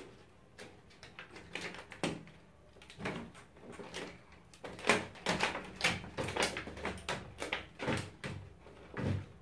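Large white plastic sheet from a 55-inch LED TV's backlight being lifted and flexed by hand: irregular crackles, rustles and knocks of the stiff plastic, busier and louder from about the middle on.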